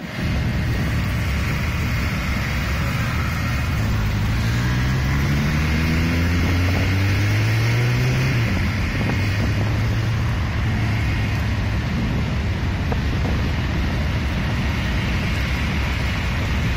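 Steady wind noise on the microphone over roadside traffic noise. From about four seconds in, a vehicle engine rises in pitch as it accelerates, then holds a steady note for a few seconds.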